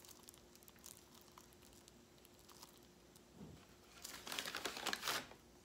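Paper gift bag and plastic wrapping crinkling as they are handled: faint light rustles and clicks at first, then a louder burst of crinkling about four seconds in that lasts about a second.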